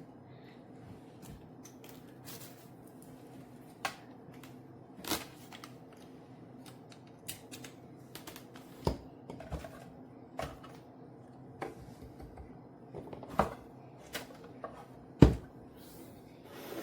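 Irregular clicks and knocks of objects being handled, a dozen or so at uneven spacing, the loudest near the end, over a steady low hum.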